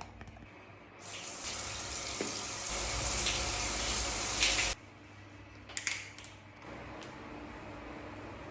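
Water running from a tap, starting about a second in and shut off suddenly a little past halfway. A short knock or splash follows, then a fainter steady run of water near the end.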